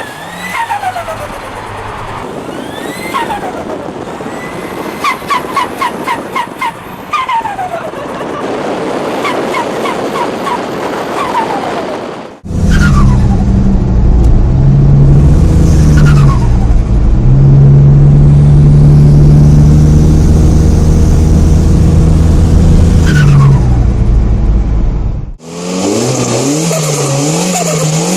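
Turbocharged car engines revving, with a falling turbo whistle each time the throttle closes and a rapid fluttering chatter of compressor surge ("sutututu") several times. It comes in three separate clips; the middle one is the loudest, a steady engine note with a few throttle lifts.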